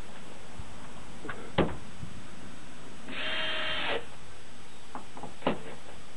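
A screw gun runs for about a second, driving a screw in during chicken coop assembly. Two sharp knocks come before and after it, about four seconds apart.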